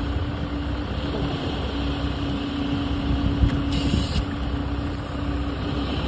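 An engine running steadily with a constant hum at one pitch. There is a short knock a little past three seconds in, and a brief hiss just before four seconds.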